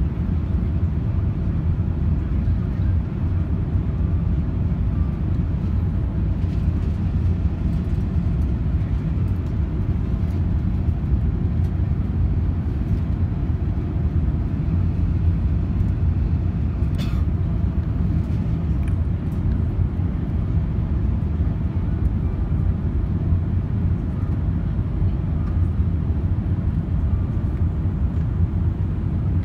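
Steady low rumble of an Airbus A380 heard inside the cabin on approach: engine and airflow noise with the flaps extended. A brief click comes about 17 seconds in.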